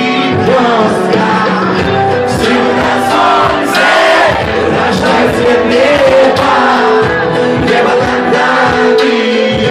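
Live singer's voice through a handheld microphone over loud backing music with a steady beat, played from a DJ setup.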